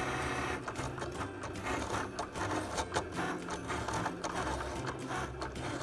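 Cricut Explore Air 2 electronic cutting machine running as it cuts cardstock: a steady motor hum with irregular short clicks as the cutting head and the mat move back and forth.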